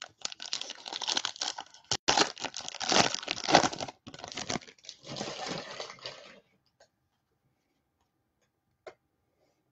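A Topps Chrome baseball-card pack wrapper being torn open and crinkled, a dense rustling tear lasting about six seconds. A single faint click follows near the end.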